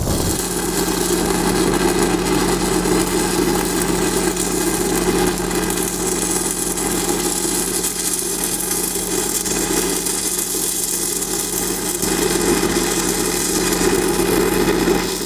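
Stick-welding arc crackling and hissing steadily as the downhill root pass on the pipe is run through to its tie-in, with a steady low hum underneath. The sound swells at the start and drops away at the end as the arc is broken.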